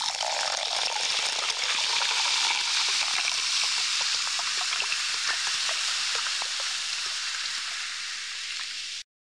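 Carbonated soda fizzing in a glass just after a pour: a steady hiss of bubbles with many tiny pops. It cuts off suddenly near the end.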